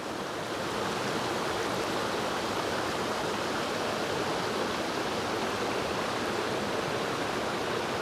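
Steady rush of flowing water from a creek and waterfall.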